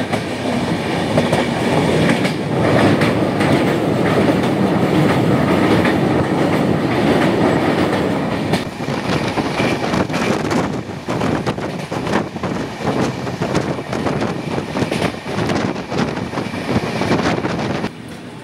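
Passenger train running along the track, heard from inside a coach at an open window: a steady wheel-on-rail rumble with rhythmic clickety-clack over the rail joints. The rumble is heaviest in the first half. The clacks come through more distinctly later, and the sound drops off sharply just before the end as the train nears a station.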